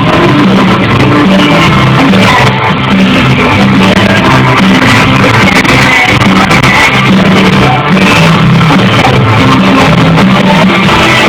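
Live rock band playing loud: distorted electric guitar, bass and drums with shouted vocals. The sound is dense and near full level throughout, pushing the phone's microphone to its limit.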